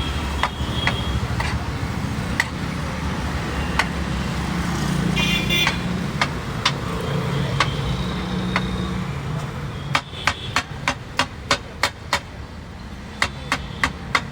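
Metal spatula striking a flat iron tawa: scattered single clangs, then a fast, even run of about four strikes a second in the last third, as rice is worked on the griddle. Street traffic runs steadily underneath, with a short high-pitched tone near the middle.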